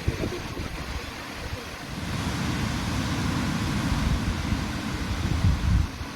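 Ocean surf washing on a beach, swelling as a wave comes in about two seconds in, with wind rumbling on the microphone.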